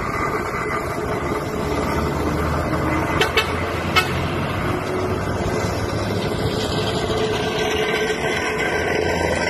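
Heavy diesel truck towing a trailer passing close by and driving away, its engine and tyres running steadily. There are a few sharp knocks as it goes by, about three seconds in and again a second later.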